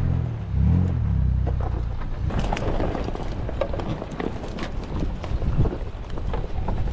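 Mitsubishi Pajero's engine running, its revs rising and falling twice in the first two seconds. After that comes an uneven rumble with scattered clicks and knocks as the 4x4 drives along a rough track.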